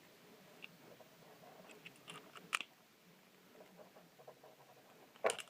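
Faint, scattered clicks and taps from small metal and plastic parts being handled at the bench while an air connector is fitted into a pistol magazine. A few clicks come close together about two seconds in, and a sharper click comes near the end.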